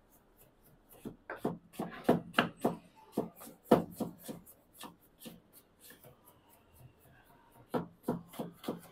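Knife chopping through a pile of minced red onion on a plastic cutting board: quick, irregular knocks of the blade against the board, about three or four a second, thinning out for a couple of seconds past the middle and picking up again near the end.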